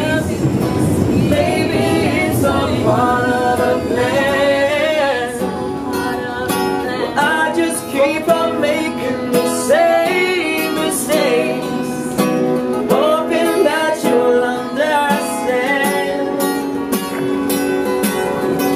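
Live acoustic guitar strummed under sung melody, the voices gliding and holding notes without clear words. A low train rumble sits underneath for the first few seconds.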